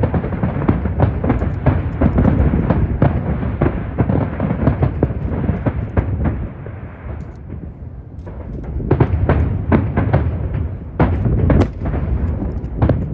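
Aerial fireworks display: a dense barrage of rapid, overlapping bangs and crackles over a deep rumble. It eases off about seven seconds in, then builds up again a second later.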